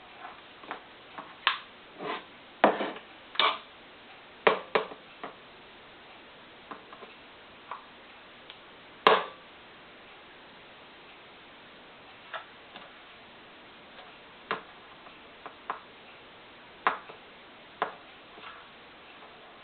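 Irregular light taps and clicks of kitchen utensils against a dish, spaced a second or more apart, the loudest about nine seconds in.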